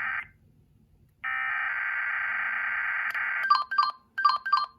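Emergency Alert System SAME header data bursts, a steady buzzing digital tone over the radio: one burst cuts off just after the start, and after a second's pause another runs for about two seconds. About three and a half seconds in, loud pairs of short electronic beeps follow.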